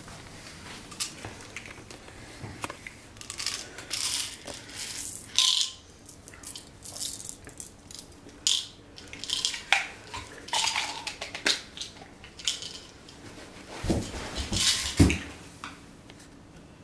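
Pills rattling and clinking in a plastic pill bottle and spilling out in a series of short sharp clicks, then two heavy thumps near the end as two people drop to the floor.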